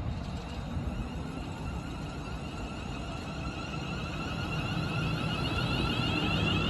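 A train approaching: a low rumble with a high-pitched, wavering whine that grows louder toward the end.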